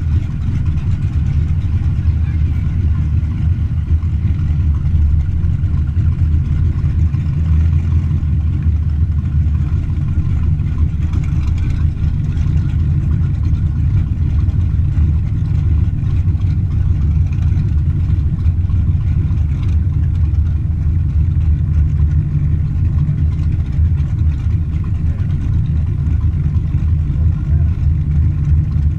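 Car engine running at a steady, low drone.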